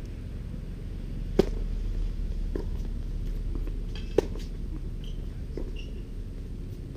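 Tennis rally: a sharp pop as the near player's racket strikes the serve about a second and a half in, a fainter hit from the far end of the court, then another loud racket strike on the ball about four seconds in, over a steady low background rumble.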